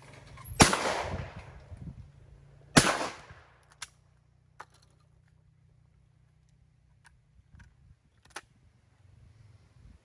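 Two 12-bore shotgun shots fired at a pair of clay targets, about two seconds apart, each with a short echoing tail. A few light clicks follow.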